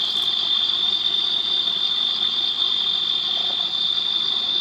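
Playback through a small handheld digital voice recorder's speaker: a steady high-pitched hiss, with a faint low growl near the end that the investigators take for a growl EVP. One of them wonders whether it is a stomach growl.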